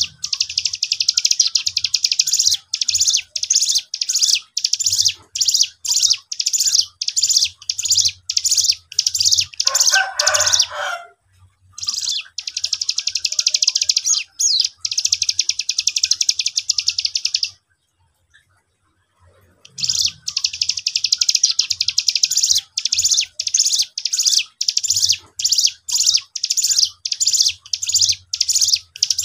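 Young cigun (ciblek gunung) singing a fast run of high, sharp, repeated chirps, several a second, with two short pauses. About ten seconds in, a lower, rougher call cuts in briefly.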